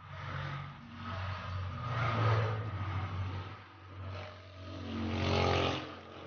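Small single-cylinder four-stroke motorcycle engine of a Honda Wave 100 running and revved up and back down twice.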